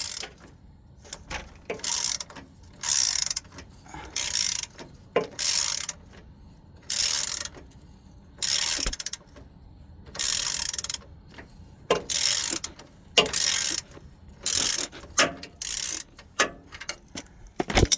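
Ratchet wrench working a bolt in a run of short ratcheting strokes, about one a second, with brief pauses between them.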